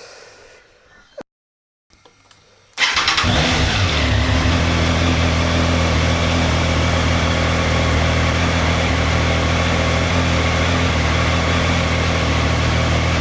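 Triumph Trident 660's three-cylinder engine starting about three seconds in, then idling steadily.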